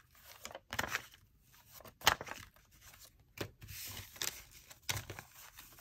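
Paper banknotes rustling and crinkling as dollar bills are pulled from a plastic cash tray and handled: a series of short, irregular, crisp rustles, the loudest about two seconds in.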